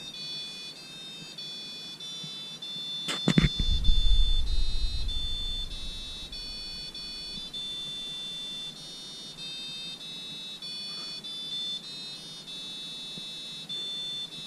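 Fisher & Paykel washing machine's electronic beeper playing the national anthem as a melody of high beeps, each note a steady tone stepping up or down in pitch: the hidden easter-egg tune set off by the button combination. A sharp knock about three seconds in is followed by a low rumble for about two seconds.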